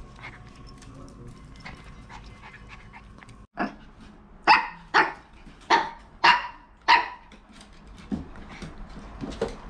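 Maltese dogs barking: about six short, loud barks in quick succession starting a few seconds in, then a couple of softer barks near the end.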